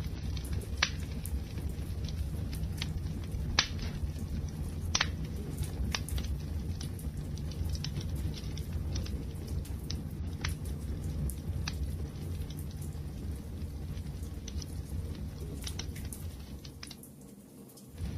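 Wood fire burning with a steady low rumble and scattered sharp crackles and pops. The sound dips briefly near the end, then comes back.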